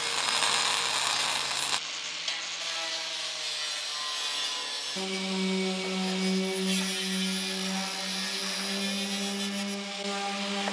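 Electric angle grinder running and grinding on steel, with a steady motor pitch and a rasping grinding noise that gets louder about five seconds in.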